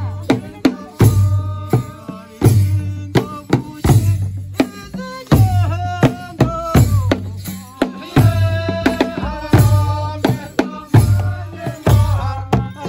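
Traditional Rwandan ingoma drums, tall skin-headed drums beaten with sticks in an ensemble: heavy deep strokes with quicker, lighter beats between them, and voices singing over the drumming.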